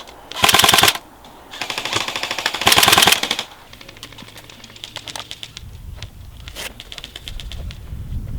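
Airsoft electric guns firing full-auto bursts, a fast rattle of shots. There is a short burst about half a second in, then a longer one that grows louder near its end, followed by scattered fainter shots and a low rumble.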